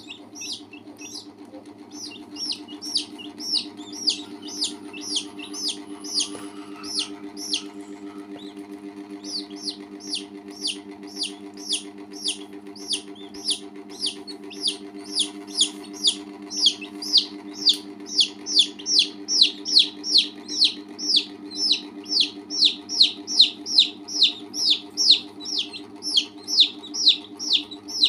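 Baby chicks and a duckling peeping: a rapid run of high, falling peeps, about three a second. The peeps pause briefly about eight seconds in and get louder in the second half, over a steady low hum.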